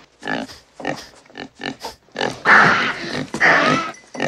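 A pig gives a quick run of short grunts, then from about two seconds in makes louder, longer cries.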